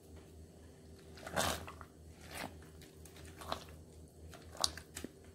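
A spoon stirring thick mashed vegetable bhaji in a steel pot: soft wet squelching strokes about a second apart, the first the loudest.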